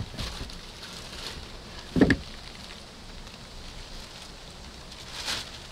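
Log frame and tarpaulin being handled: rustling and light knocking, with one sharp wooden knock about two seconds in and a brief swish near the end.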